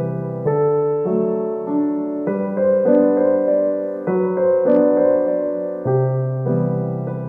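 Background solo piano music: a slow melody over held chords, the notes changing about every half second to a second.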